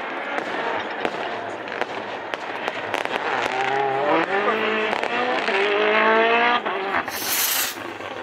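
Rally car engine accelerating hard through a bend and up through the gears, revs climbing and dropping sharply at an upshift, with sharp pops and crackles throughout. A brief hiss comes near the end.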